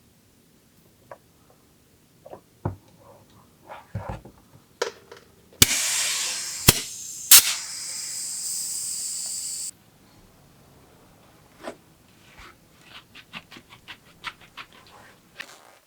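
Scattered clicks and knocks of parts and tools being handled during a bicycle build. Midway a steady high hiss runs for about four seconds and cuts off suddenly, with a few sharp clicks at its start.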